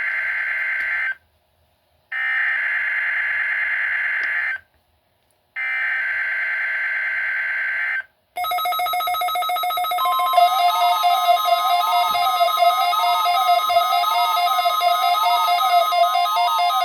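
NOAA Weather Radio emergency alert test signal. It starts with three bursts of screechy digital SAME header data, each about two and a half seconds long with a short silence between. About eight seconds in, a loud electronic alert tone starts, with pulsing tones and rising-and-falling sweeps, joined about two seconds later by a steady warning alarm tone.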